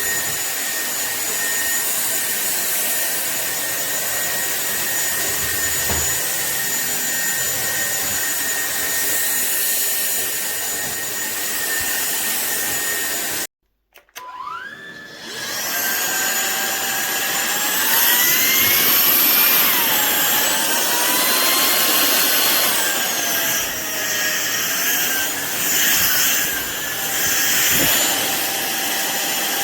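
Cordless stick vacuum cleaner running with a steady whine, cut off suddenly about 13 seconds in. After a second's silence the motor spins up again, and its whine rises and falls in pitch as its speed changes.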